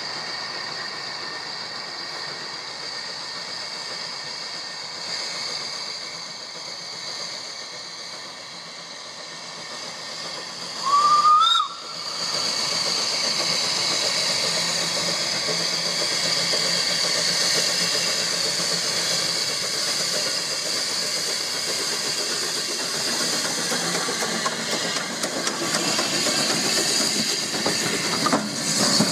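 Peckett saddle tank steam locomotive running with a steady hiss of steam escaping from its cylinder drain cocks. About 11 seconds in it gives one short whistle blast, the loudest sound, and after it the hiss grows louder and runs on as the engine draws near.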